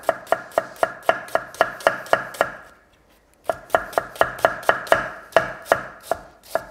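Chef's knife slicing a brown onion on a thick wooden chopping board: quick, even knife strikes on the board, about three or four a second, pausing for about a second midway and then resuming.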